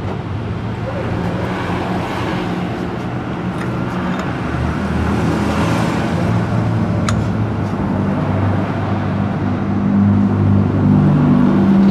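Yamaha Mio Z scooter engine running with the CVT cover off, its note rising a little partway through and again near the end. One sharp click about seven seconds in.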